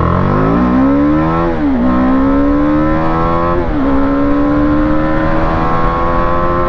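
BMW G310R's 313 cc single-cylinder engine accelerating hard under full throttle. Its pitch climbs steadily and drops sharply at each upshift, twice, the second pull rising more slowly in the higher gear.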